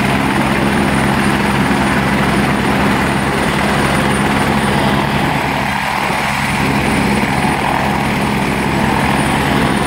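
Two helicopters running on the ground with their main rotors turning, waiting to take off. A steady, loud rotor and engine noise with a thin high whine over it, and no change in pace.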